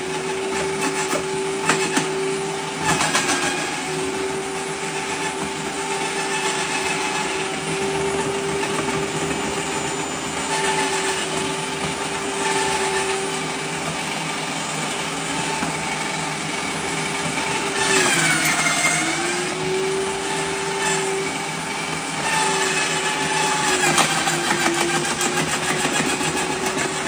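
Milling-type branch shredder running steadily, with clicks and crackles throughout. Its motor pitch sags and recovers twice, about two-thirds of the way through and near the end, as it is loaded by the wood being fed in.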